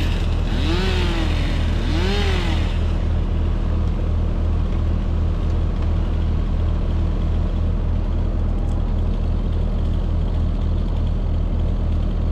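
Engine of a grapple-equipped loader running steadily close by, with a regular low throb. In the first couple of seconds two brief whines rise and fall over it.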